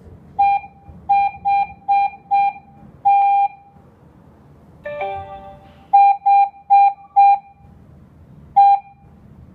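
G90B alarm panel keypad beeping as a password is keyed in: short identical beeps, one per key press, at an uneven typing pace. A longer beep comes about three seconds in, a brief different multi-tone chime about five seconds in, then more key beeps.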